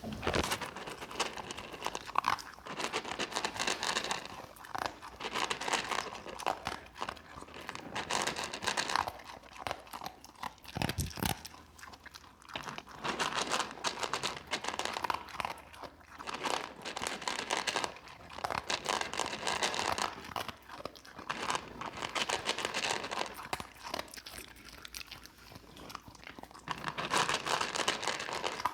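Pit bull eating its dinner, chewing with loud, irregular crunching and a few brief pauses.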